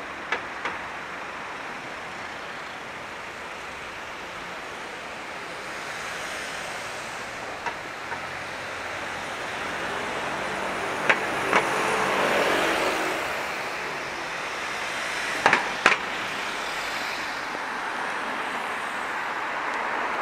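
City street traffic noise, with a vehicle passing about halfway through, its engine swelling and then fading. Several sharp clicks come in pairs along the way.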